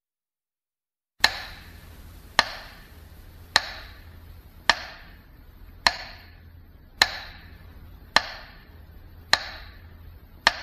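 Slow, even ticking: nine sharp ticks a little over a second apart, each with a short fading ring, over a faint low hum, starting about a second in.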